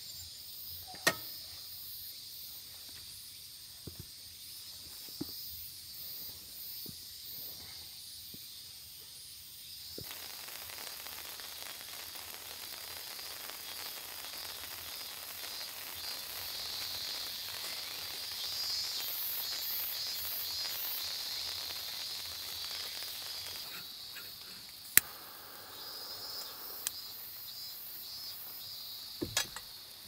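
Steady outdoor chorus of insects chirping high-pitched. It swells into a fuller hiss for a stretch in the middle. A few sharp clicks come through, the loudest about 25 seconds in.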